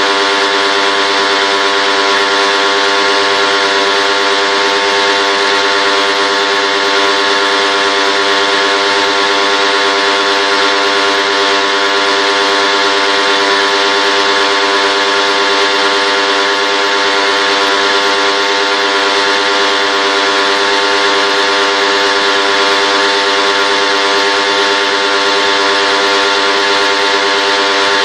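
Steady machine hum with a continuous hiss, unchanging in pitch and loudness throughout.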